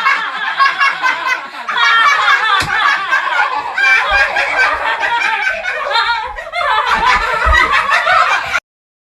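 A person laughing hard and without a break, cutting off suddenly about eight and a half seconds in.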